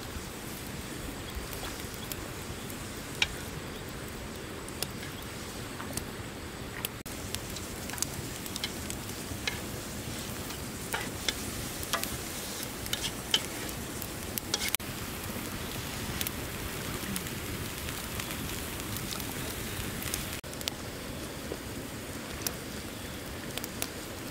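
Stick campfire crackling under a wok, with scattered sharp pops over a steady hiss.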